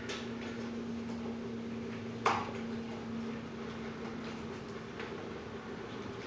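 Hands working the wiring of an LED light strip in an aluminum sign section: faint small ticks of handling and one sharp click about two seconds in, such as a wire connector clip snapping shut, over a steady low hum.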